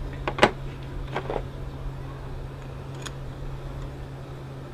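A few short metal clinks and taps from a pulley installer tool's bolt and parts being handled at the power steering pump, the loudest about half a second in, over a steady low hum.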